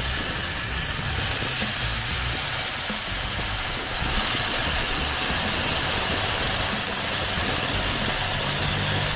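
Wind rumbling against the microphone over a steady hiss from a portable tabletop grill as thin slices of raw beef are laid on its hot pan.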